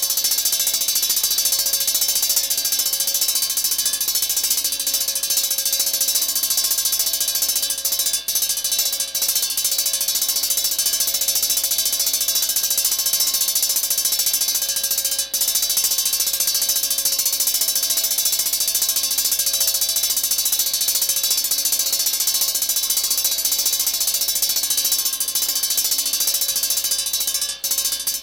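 Fire alarm bell ringing steadily without a break, then cutting off suddenly at the very end.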